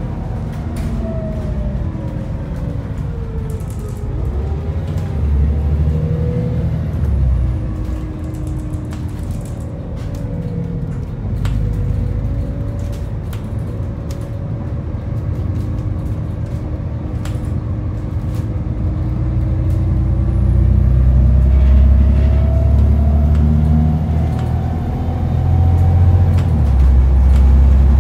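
Inside an Alexander ALX400 double-decker bus under way: a deep diesel engine rumble, with a whine that falls and then climbs again as the bus slows and speeds up. Small rattles and clicks come from the body and fittings. The whole grows louder in the last third as the bus pulls harder.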